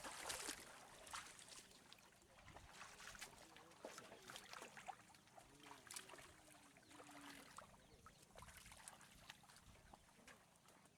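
Faint trickling and splashing of water with scattered small clicks and knocks.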